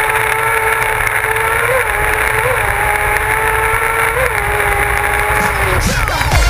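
Onboard sound of a kart cross buggy's motorcycle engine held at steady high revs, with a few brief blips in pitch, over wind and road noise. Near the end the steady note breaks off.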